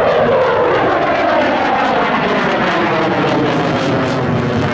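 Dassault Rafale fighter jet flying past with its twin turbofan engines running loud, a tone in the noise sweeping steadily downward in pitch as it goes by.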